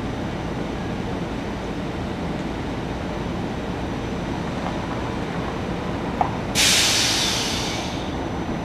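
SEPTA Silverliner IV electric multiple-unit train standing at the platform with its onboard equipment running in a steady rumble. About six seconds in, a faint click is followed by a sudden loud burst of hissing air from the train's air system, which fades away over about a second and a half.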